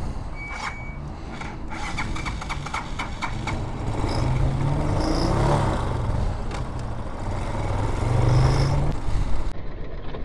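BSR Raven 250's 229cc air-cooled single-cylinder engine pulling away, its pitch rising and falling twice as it gathers speed. A run of clicks comes before it in the first few seconds.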